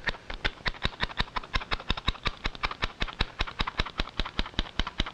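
Squeeze-handle metal flour sifter clicking as its handle is worked over and over, sifting flour: a rapid, even clicking, about seven clicks a second.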